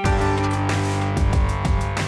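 Background electronic music with a heavy bass line and a steady beat.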